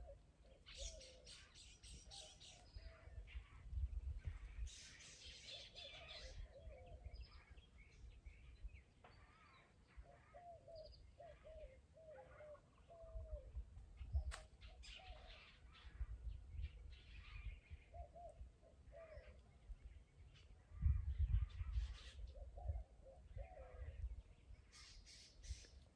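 Birds calling over and over in short clusters of low, wavering notes. Underneath are rustling and low handling thumps from someone moving through dry brush, and the thumps are loudest about three-quarters of the way through.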